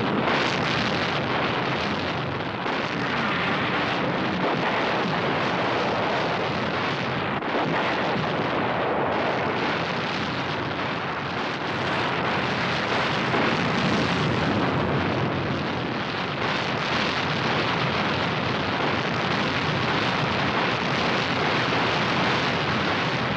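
A steady, fairly loud rushing noise with no separate blows or tones.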